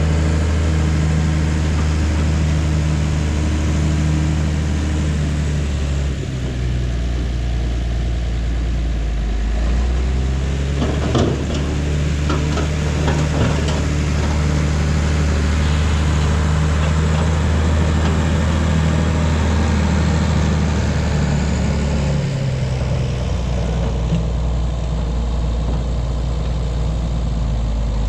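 Heavy diesel engine running steadily, its note shifting slightly about six seconds in and again a little past twenty seconds. A short run of knocks comes around the middle.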